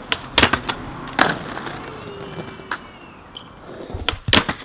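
Skateboard on a granite ledge: a series of sharp clacks as the board and trucks strike the stone, a rough scraping slide after the loudest one about a second in, and another quick cluster of clacks near the end as the board pops off the ledge.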